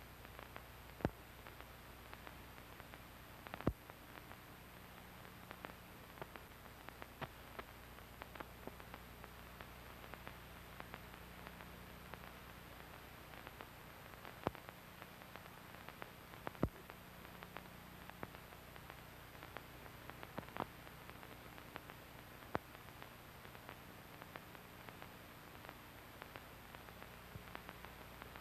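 Steady hiss and a low hum with scattered clicks and pops: the noise floor of an old archival film transfer with no soundtrack. The loudest clicks fall about a second in, near four seconds, and a few more in the middle stretch.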